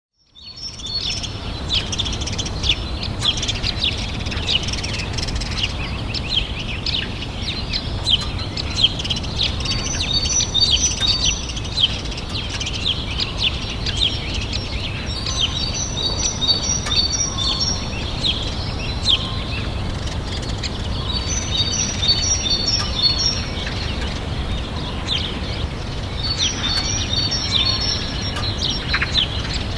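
Outdoor birdsong ambience: many birds giving short, falling chirps, with a quick run of high notes repeated every five or six seconds, over a steady low rumble.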